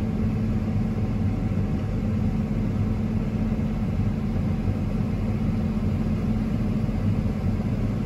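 Steady drone of diesel farm machinery heard from inside a tractor cab during corn harvest, an even engine hum with a constant low tone that holds level throughout.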